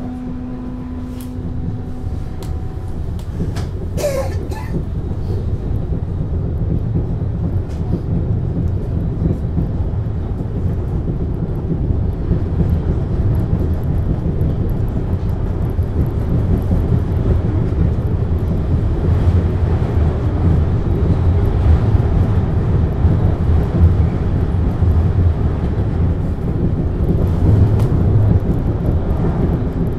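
1972 MAN GTW 72 car of the Wuppertal suspension railway, heard from inside, running along its overhead rail: a steady low rumble of the electric car that grows louder as it gathers speed. A steady humming tone stops about two seconds in, and a short sharp clack comes about four seconds in.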